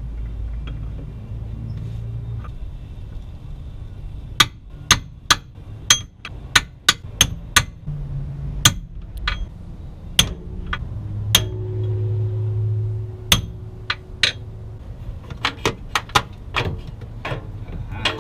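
Hammer tapping on a socket extension rod pushed up against the rusted steering intermediate shaft of a 1991 Ford Mustang, driving it out of the steering rack: a long run of sharp metal taps starting about four seconds in, irregular, up to about three a second. The shaft is stuck with rust and corrosion.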